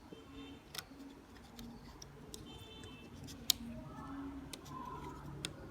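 Scattered small, sharp clicks and taps of plastic mouse parts being handled while the printed scroll-wheel roller is fitted to the encoder; the loudest click comes about three and a half seconds in.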